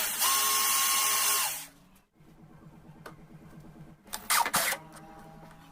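A power tool, drill-like, runs loud and steady for about a second and a half, then cuts off. A couple of short, loud noises follow about four and a half seconds in.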